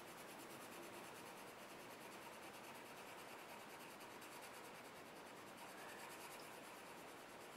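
Faint, steady scratching of a colorless blender pencil, a wax pencil with no pigment, rubbed over layered colored pencil on paper.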